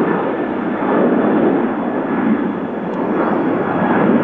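Boeing 747-400 freighter's four jet engines at takeoff power: a loud, steady jet noise that dips slightly midway and swells again near the end.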